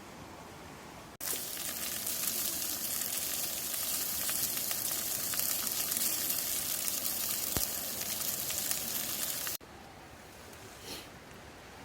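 Food sizzling in a hot pan, a steady frying hiss with fine crackles. It cuts in suddenly about a second in and stops just as suddenly near the end.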